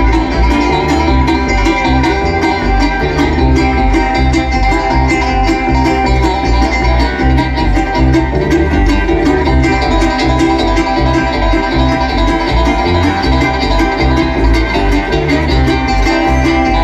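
Live bluegrass band playing an instrumental passage at full volume, with picked banjo and guitar over a steady driving beat.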